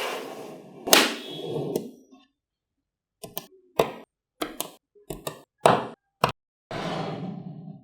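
Small magnetic balls clicking sharply as they snap together, a string of single clicks at irregular intervals. Loose balls rattle and clatter against one another at the start and again near the end.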